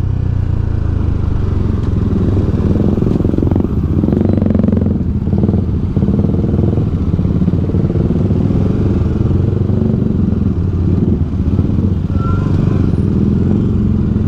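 The single-cylinder engine of a BMW G310 GS motorcycle running steadily at low speed, heard from the rider's seat.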